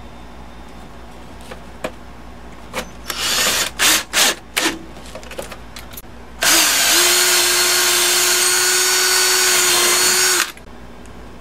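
Cordless drill: several short bursts of the motor a few seconds in, then one steady run of about four seconds, boring a hole into a wooden board, that spins up quickly, holds its pitch and stops abruptly near the end.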